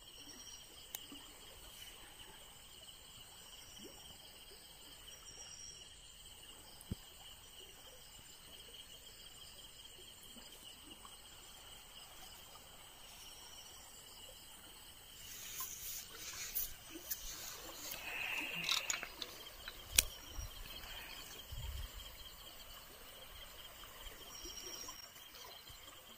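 Steady high-pitched chirring of crickets at night. Over about the second half, irregular splashing and scrabbling of a hand in shallow water among rocks as an eel is grabbed, with one sharp knock about twenty seconds in.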